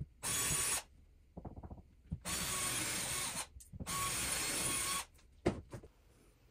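Cordless drill driving 4-inch wood screws through a wooden board into a ceiling joist, running in three bursts: a short one just after the start, then two longer runs of about a second each with a brief pause between. Light clicks and handling noises fall between the runs.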